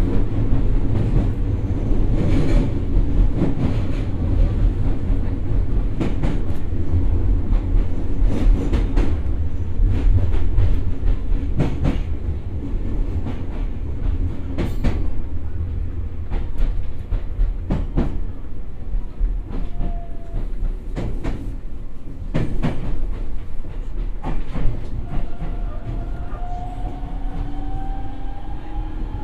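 JR East E127 series electric train rolling along, heard inside the car: a steady low rumble with the click of wheels over rail joints as it slows a little. Near the end the Toyo IGBT-VVVF inverter and traction motors start a rising whine as the train powers up again.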